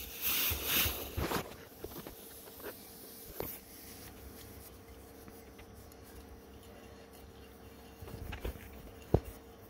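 Faint handling sounds from a Stop & Go tire plugger gun being unscrewed while its probe tube sits in the tire tread: a short rustling hiss in the first second or so, then a few light clicks over a steady faint hum.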